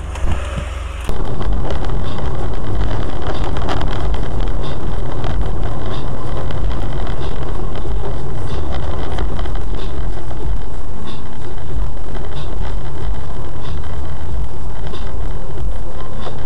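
Loud, steady driving noise of a car on the road, picked up inside the car by a dashcam microphone. It starts abruptly about a second in and stays even throughout.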